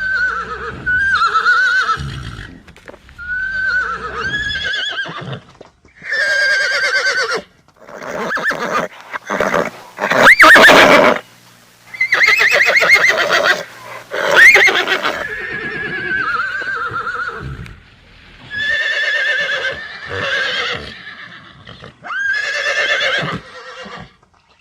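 Horses neighing and whinnying: about a dozen separate calls of a second or two each, with quavering, wavering pitch, some rising into a high shrill squeal, in quick succession.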